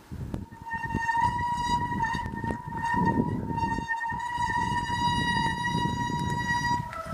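Mountain bike brakes squealing in one long steady tone while the bike rolls over a low rumble of tyres and wind; the pitch shifts right at the end.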